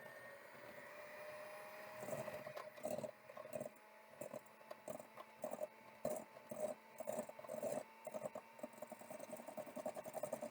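Stand mixer running to cream butter and sugar: a steady motor whine, with irregular quick knocking and patter from about two seconds in as the paddle beats the stiff, barely softened butter and sugar around the bowl.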